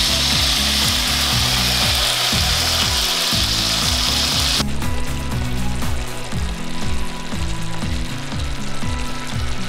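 Onion slices frying in butter, sizzling loudly as the soy-based sauce hits the hot pan. The sizzle drops suddenly about four and a half seconds in and continues more quietly. Background music plays throughout.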